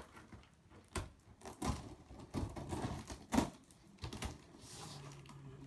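A knife cutting and prying at a box's packaging: irregular clicks, taps and scraping, with a few sharper knocks.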